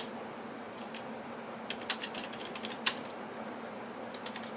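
Sparse keystrokes on a computer keyboard: a handful of separate clicks, the clearest about two and three seconds in, over a steady low hum.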